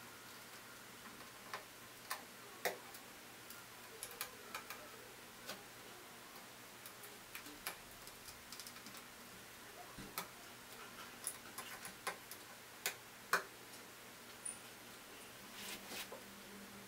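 Irregular small clicks and ticks from plastic wire-harness connectors being handled and plugged onto an embroidery machine's control circuit board, with the odd soft rustle of the wires. The clicks come singly at uneven intervals, a few sharper than the rest.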